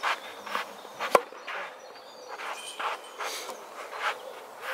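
A tennis racket strikes a ball once, sharply, about a second in. Around it, shoes scuff and shuffle on the clay court.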